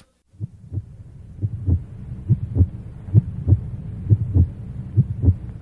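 Heartbeat sound effect: a slow double thump, lub-dub, about once a second over a faint low hum, fading in during the first second or two.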